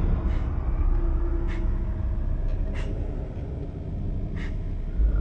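A steady low rumble with a faint hum, broken by a few faint, short clicks at uneven intervals.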